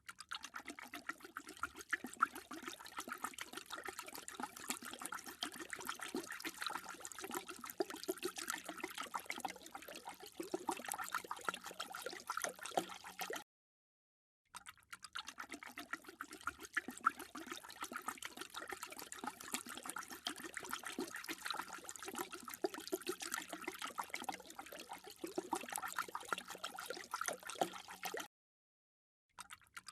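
A dog lapping water, a dense run of quick wet laps and splashes. It comes in two long takes with a short break of silence about halfway through.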